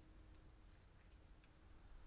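Near silence: faint outdoor background with a few faint, short high ticks.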